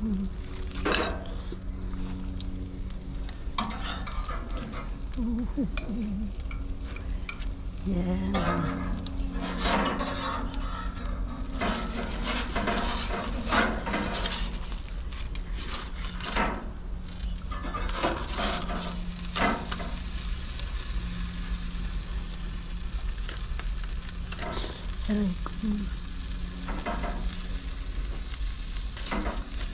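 Food sizzling on a grill, with a metal utensil clicking and scraping now and then as the pieces are moved or turned, over a steady low hum.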